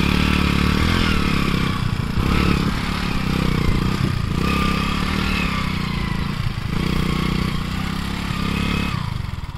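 Motorcycle engine running and revving up and down several times, with thin, wavering high squeaks over it.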